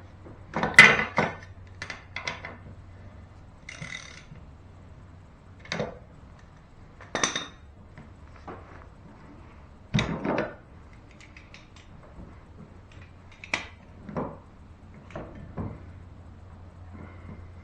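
Metal hand tools and parts clinking and knocking against each other, in a dozen or so separate clanks; the loudest come about a second in and at about ten seconds. A faint low hum runs underneath.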